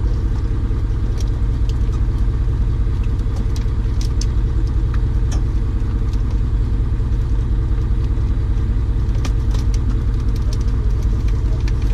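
Steady low drone of an idling engine, with a few faint clicks scattered through it.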